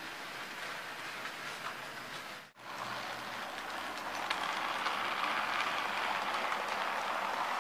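HO scale model trains rolling on the track: a steady rushing of metal wheels on rail with a few light clicks. The sound cuts out briefly about two and a half seconds in, then grows louder from about four seconds in as the scratch-built 2-8-0 steam locomotive and its coaches pass close by.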